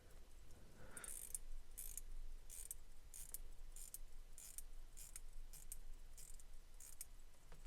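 Vintage Elgin mechanical wristwatch being wound by its crown: faint, evenly spaced ratcheting clicks, about three every two seconds, as the mainspring is wound to test whether the watch runs.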